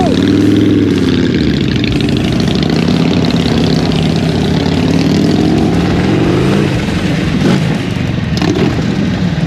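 Motorcycle engine running as the bike is ridden. Its note dips and rises early on, climbs steadily as it accelerates, then drops back at a gear change about two-thirds of the way through.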